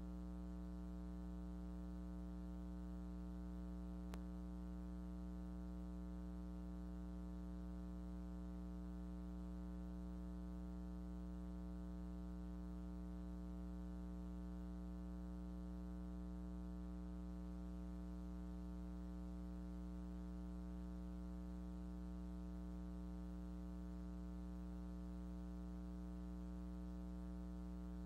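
Steady low electrical hum with evenly spaced overtones and nothing else on the tape's soundtrack, with one faint click about four seconds in.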